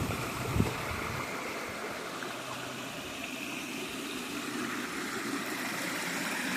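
Shallow creek water flowing steadily over its bed, a continuous rushing hiss, with a few low thumps in the first second.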